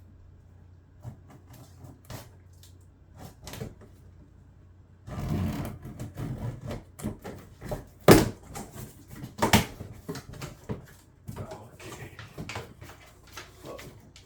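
Cardboard box being opened and unpacked: a few light clicks at first, then from about five seconds in a stretch of cardboard and packing rustling and scraping, with two sharp knocks about eight and nine and a half seconds in.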